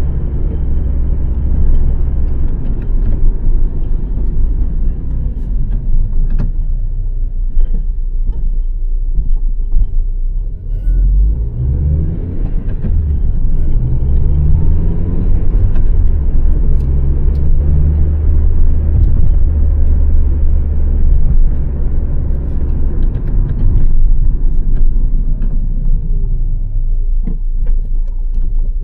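2006 Honda Civic's 1.8-litre four-cylinder petrol engine and road noise while driving: a low rumble that drops back about ten seconds in, rises in pitch as the car speeds up, holds steady at cruise, then eases off near the end.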